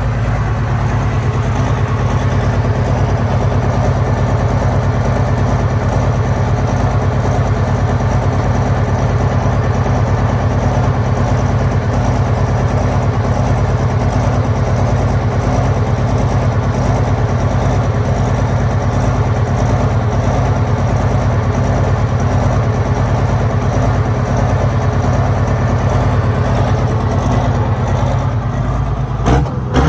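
John Deere pro stock pulling tractor's turbocharged diesel engine idling loudly and steadily. Near the end the sound starts to change and swing as the engine begins to rev.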